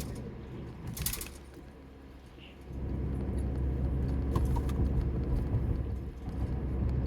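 Car cabin road noise while driving: a steady low rumble that dips and then swells back about a third of the way in. Two short rustles come near the start.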